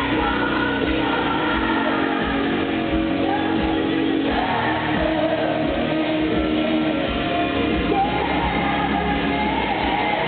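Live country-pop band with a woman singing lead, echoing in a large arena over a steady drum beat, with shouts and whoops from the crowd.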